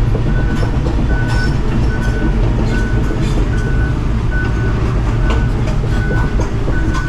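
Hitachi Zaxis 250 excavator running and travelling on its tracks, the tracks clanking, with its travel alarm sounding a short beep about every 0.8 seconds.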